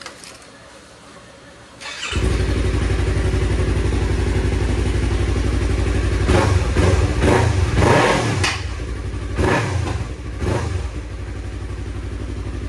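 2017 Yamaha R3's 321 cc parallel-twin engine started about two seconds in, catching at once and idling. Several short throttle blips follow in the middle before it settles back to a steady idle.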